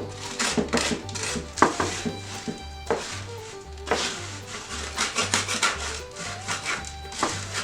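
Background music with a steady, repeating bass line, with irregular scratchy scraping strokes over it.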